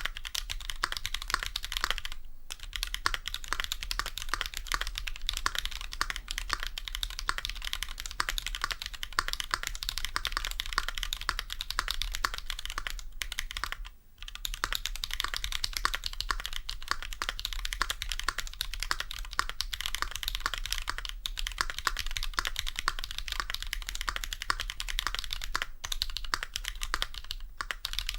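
Continuous fast typing on a stock Keychron Q2 aluminium gasket-mount mechanical keyboard with lubed Drop Holy Panda tactile switches, many keystrokes a second. The typing stops for under a second about halfway through.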